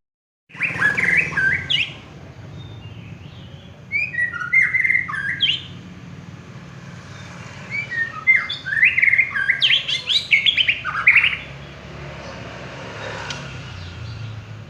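Murai songbird singing in three bursts of quick whistled notes that rise and fall; the third burst, about a third of the way in and running a little over three seconds, is the longest and loudest. A steady low hum lies underneath.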